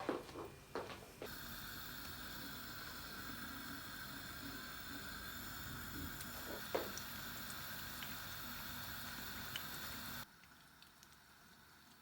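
Kitchen work: a few quick clatters, then a steady hiss for about nine seconds that cuts off suddenly.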